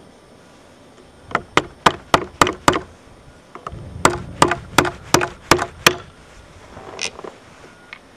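Hammer blows driving a retaining pin out of an old brake master cylinder to free its reservoir. There are two quick runs of about six sharp strikes each, then one more strike near the end.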